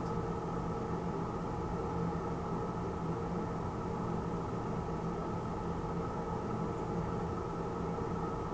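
Steady machine hum with several held tones over a low rumble and faint hiss, as from a film projector running while a silent home movie plays.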